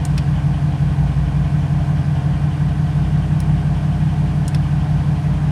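Porsche Cayenne S's 4.5-litre V8 idling steadily, with a few faint ticks.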